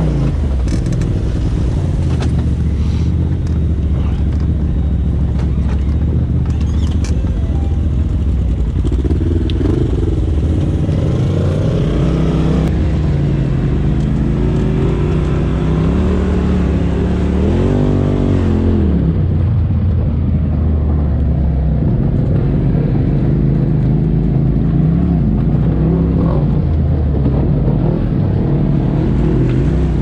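Polaris RZR Turbo side-by-side engine, heard from the cab while being driven, its revs rising and falling again and again with the throttle.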